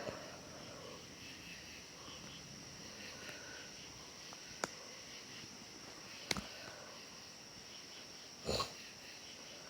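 A person's faint breathing through the nose, with two sharp clicks in the middle and a short, sharp nasal burst about eight and a half seconds in.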